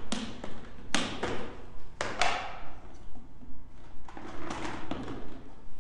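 Hard objects knocking and clattering inside a plastic bucket as someone rummages through it: three sharp knocks about a second apart, the last ringing briefly, then softer rustling and scraping near the end.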